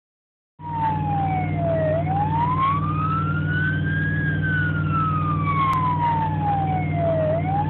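Emergency vehicle siren in a slow wail, one tone rising and falling about every five seconds, over the steady drone of the vehicle's engine heard from inside the cab. It cuts in about half a second in.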